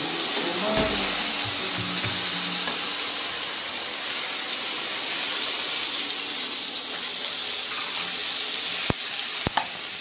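Onions and tomatoes sizzling steadily in hot oil in a wok as the tadka (tempering) for palak paneer, with two sharp knocks near the end.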